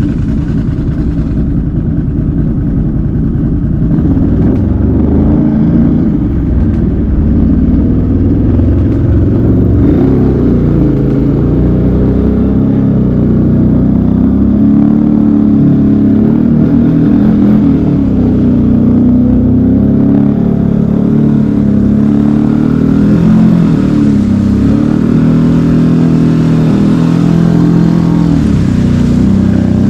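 ATV engine running loudly under way, its pitch rising and falling as the throttle opens and closes.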